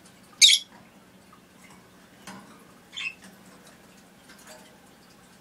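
Cockatiel giving a short, loud screech, then a softer call about two and a half seconds later.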